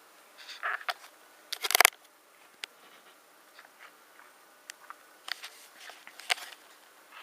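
Laptop being taken apart by hand: scattered small clicks, taps and short scrapes of hard parts. A louder rattling run of clicks comes about two seconds in, and a sharp click comes a little after six seconds.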